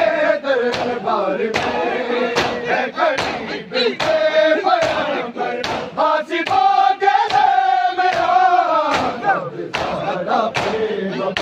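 A large crowd of men chants a noha in unison in long, drawn-out lines while beating their chests in matam. The chest slaps land together in a steady beat a little faster than once a second.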